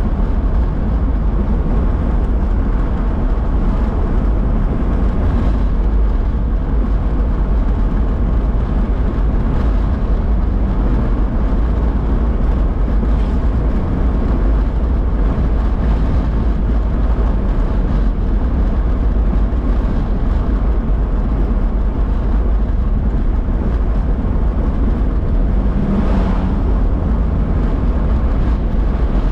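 Steady road noise inside a moving car's cabin: tyres running on wet pavement over a deep, even rumble from the engine and road.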